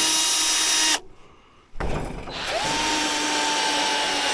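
Power drill motor running in two long runs: the first stops about a second in, and the second starts sharply just under two seconds in and keeps going with a steady whine.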